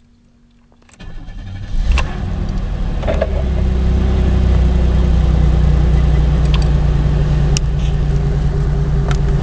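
The 3.1 V6 of a 1994 Chevy Lumina Euro is cranked over and catches about two seconds in, then settles into a steady idle. The owner complains of a rough, surging idle and stalling with no check engine light, which a shop could not trace.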